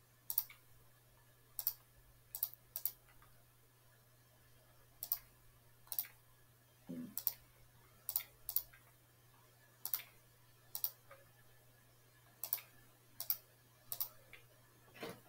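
Computer mouse clicking, about sixteen sharp clicks at irregular intervals of roughly a second, some heard as a quick double click, as the kite shapes of the on-screen tile are filled with colour one by one. A faint steady low hum runs underneath.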